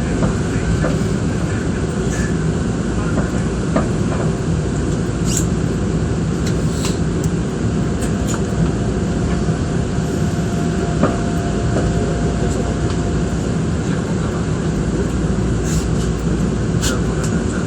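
Steady hum and rumble inside a Nankai Koya Line electric train held up by a stop signal, with a thin steady tone that stops about 13 seconds in and a few faint clicks and knocks.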